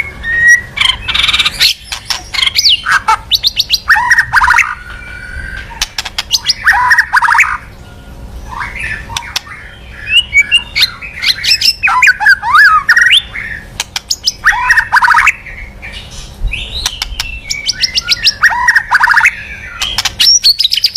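White-rumped shama (murai batu) singing loudly. It gives varied phrases of fast rattling trills, chattering notes and quick whistled slurs, in bursts every second or two with short gaps between.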